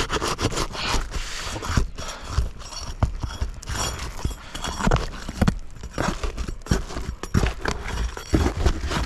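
Irregular scraping, cracking and knocking as an asphalt roof shingle is worked loose from its glued-down adhesive strip, over a steady low rumble.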